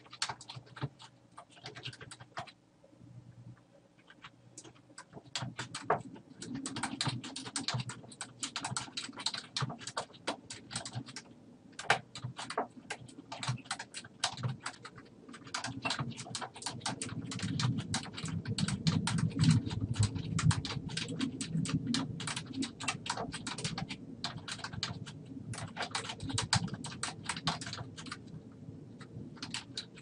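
Computer keyboard typing: a fast run of key clicks, sparse for the first few seconds, then quick and nearly continuous with short pauses.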